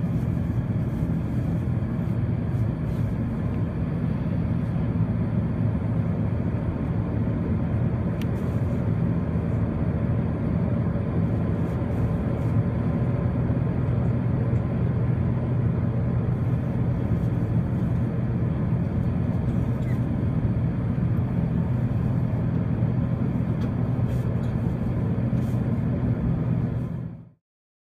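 Steady drone of an Airbus A380's Rolls-Royce Trent 900 engines and airflow heard inside the cabin over the wing, in flight after takeoff, with a low hum under a broad rush. It cuts off suddenly near the end.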